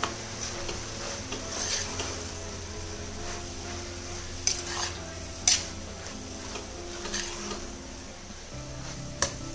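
A steel spoon stirs and scrapes sliced onions and chopped tomatoes frying in oil in an aluminium pressure cooker, the sauté stage of a curry base. Three sharp clinks of the spoon against the pot, the loudest about five and a half seconds in.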